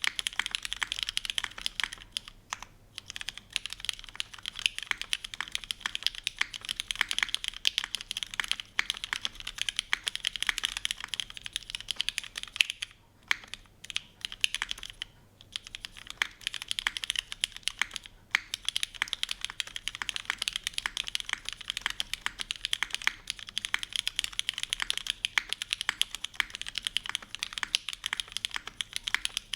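Fast continuous typing on a gasket-mount polycarbonate Kohaku mechanical keyboard with an aluminium plate, broken-in lubed and filmed Cherry MX Black linear switches, and GMK doubleshot keycaps: dense keystroke clacks with a few short pauses, about two and a half, thirteen and fifteen seconds in.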